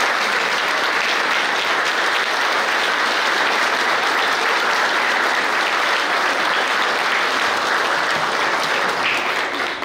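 A crowd applauding steadily after a speech, dying away near the end.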